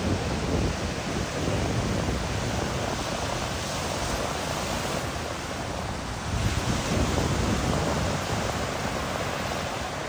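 Ocean surf breaking and washing up the beach, a steady rushing hiss that swells a little about six and a half seconds in, with wind rumbling on the microphone.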